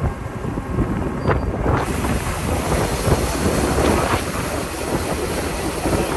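Combine harvester running while unloading corn into a grain cart: a steady machine rumble under a rushing hiss, which grows fuller about two seconds in.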